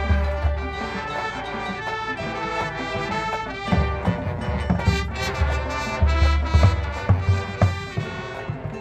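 High school marching band playing its field show: brass holding and moving through chords, with low drum hits and percussion strikes coming in through the second half.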